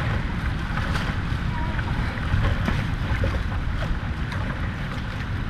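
Rough, choppy sea washing around a sea kayak's bow, with wind buffeting the microphone in a steady low rumble.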